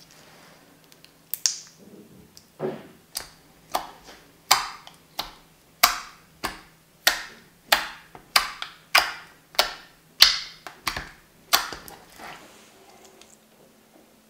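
Clear water slime being pressed and squished against a table, giving a regular series of about sixteen sharp pops and clicks, roughly two a second, that stop near the end.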